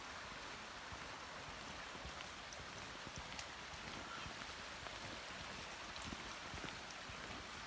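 Low, steady hiss of water, with a few faint scattered ticks.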